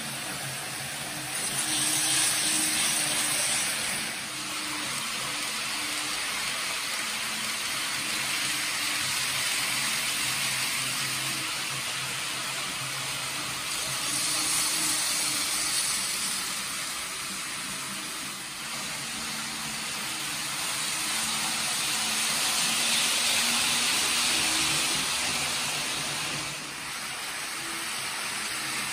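Kato N gauge model Shinkansen trains running on the track: a steady whirring rush of motors and wheels that swells three times as trains pass close by.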